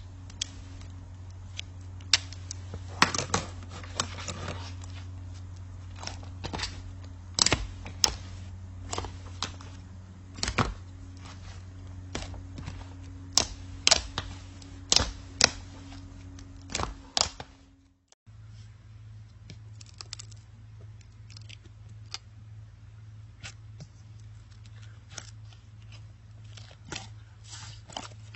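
Irregular sharp clicks and light knocks, like things being handled on a table, over a steady low hum. The hum cuts off suddenly about two thirds of the way through and gives way to a different low hum with fainter, sparser clicks.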